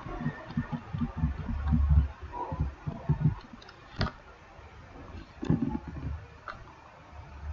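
Handling noise: a run of soft low thumps, then a few sharp clicks, the loudest about four seconds in.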